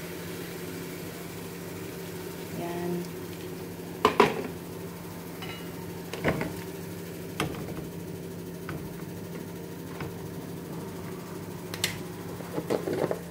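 A cooking utensil knocking against a pan of vegetables a few times, the loudest knock about four seconds in and a quick cluster near the end, over a steady low machine hum.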